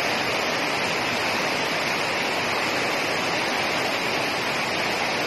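Small river in flood, its muddy brown water rushing fast: a steady, unbroken rush of water.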